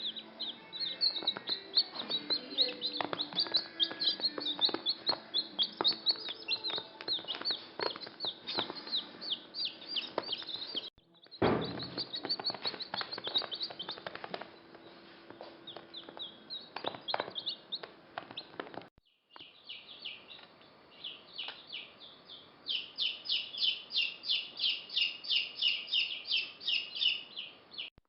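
Young birds cheeping: a dense stream of high, downward-sliding cheeps that cuts off abruptly twice. Near the end comes a fast, even run of cheeps, about four or five a second.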